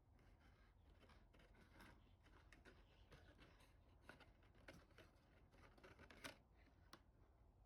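Near silence, with faint, irregular small clicks and rustling.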